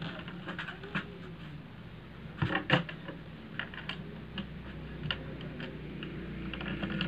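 Light clicks and scratches of a coloured pencil on paper and of the paper being handled, with a louder knock a little over two and a half seconds in, over a steady low hum.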